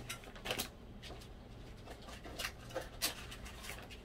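Faint, scattered light clicks and rustles, a handful of soft taps spread over the few seconds above a low steady hum.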